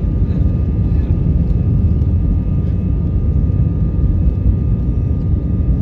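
Steady jet-engine and airflow rumble of an airliner heard from inside the passenger cabin, with a few faint steady whining tones above it.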